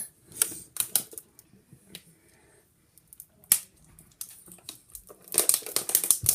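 Thin plastic water bottle crinkling and crackling as it is squeezed while being chugged: scattered crackles at first, thickening into a dense run of them near the end.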